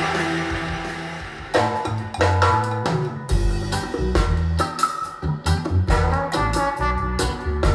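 Recorded music played through a pair of B&W Vision V201 bookshelf speakers: a hard rock track fades out, and about a second and a half in a reggae track starts, with drums and a steady beat.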